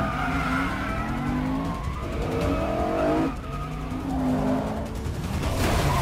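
Car-chase sound effects: engines revving hard and tyres squealing, the pitch rising and falling repeatedly, with a crash of metal and breaking glass near the end.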